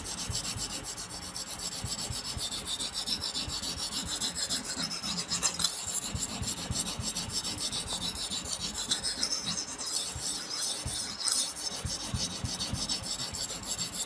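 Steel knife blade being stroked rapidly back and forth on a wetted Buck pocket natural sharpening stone: a continuous gritty scraping that pulses with each stroke. He is pressing hard to grind faster.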